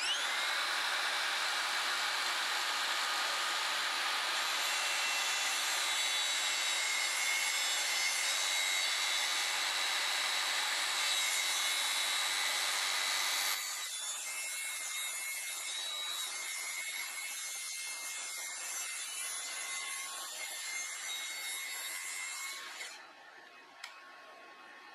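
Makita cordless track saw spinning up and cutting a chamfer along the end of a red oak tabletop, a steady whine over the noise of the blade in the wood. About halfway through the sound drops and runs on more quietly, then stops a couple of seconds before the end, followed by a single click.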